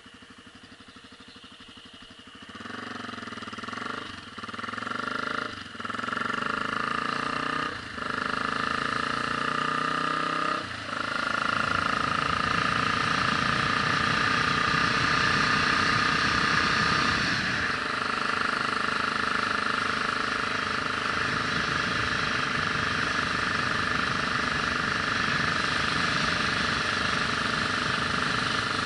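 A vehicle's engine pulling away and accelerating: its note rises four times with short dips between, as gears are changed, then it settles into a steady run at cruising speed from about twelve seconds in.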